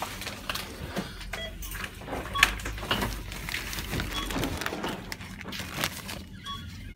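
A plastic carrier bag rustling and crinkling as it is handled, with a few short electronic beeps from a supermarket checkout.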